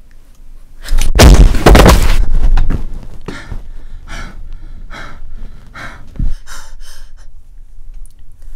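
A loud, sudden noisy burst about a second in, lasting about a second, followed by a woman's quick panting breaths, about two a second, with a brief low thump near the end of the panting.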